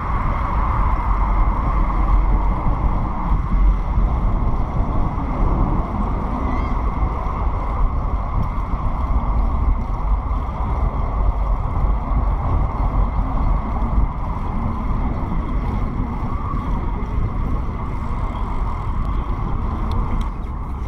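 Wind buffeting the microphone and tyre noise from a bicycle being ridden: a steady rush dominated by a deep rumble.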